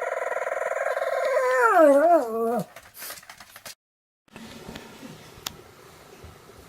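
Pomeranian howling: one long held howl that wavers and drops in pitch before breaking off about two and a half seconds in, followed by faint room sounds.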